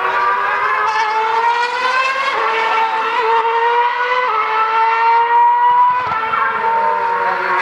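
2013 Formula One car's 2.4-litre V8 engine at high revs on track. Its pitch climbs slowly, with a sharp drop about four seconds in and another about six seconds in.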